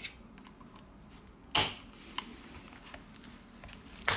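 A few sharp clicks and small ticks of a metal opening tool prying along the edge of a phone's glued back cover, the loudest about a second and a half in.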